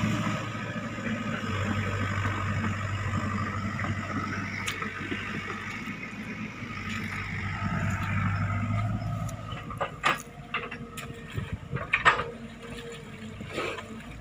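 Sany SY55C mini excavator's diesel engine running steadily under hydraulic load, then easing off about nine seconds in. Several sharp knocks and clunks follow near the end as the bucket works the mud.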